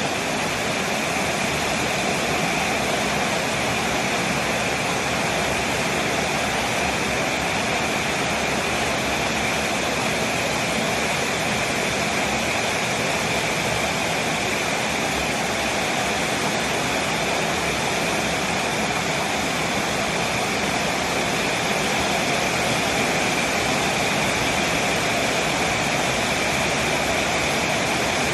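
Heavy rain falling, a steady, even rushing hiss that does not let up.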